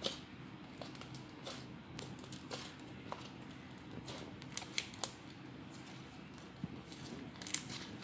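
Homemade glue-and-baking-soda slime being squeezed and stretched in the hands, giving scattered sticky clicks and pops, a few louder ones about halfway through and near the end.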